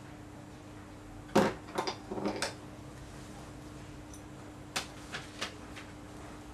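Several short, sharp clicks and knocks in two small clusters, one about a second and a half in and another near the middle, over a steady low hum.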